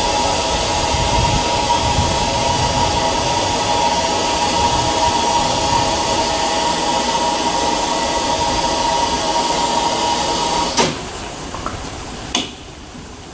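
Harzer Schmalspurbahnen steam locomotive 99 6001 blowing off steam: a loud, steady hiss with a high tone in it. It cuts off abruptly about eleven seconds in with a knock, and a second knock comes near the end.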